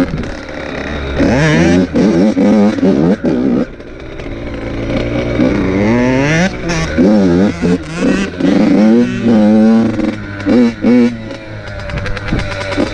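Dirt bike engine revving hard while riding. Its pitch climbs and falls back again and again, with frequent sudden short drops in level.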